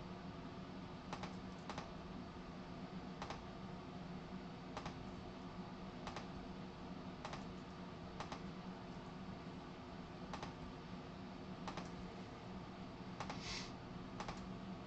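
About a dozen single sharp clicks, spaced irregularly one to two seconds apart, over a steady low hum and hiss. One short hiss comes near the end.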